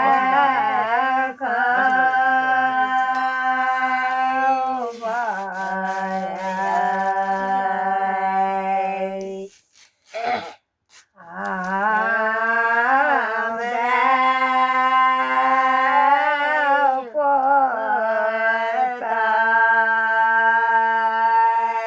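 A single voice singing long, drawn-out notes with a wavering vibrato, in two long phrases with a short break about ten seconds in.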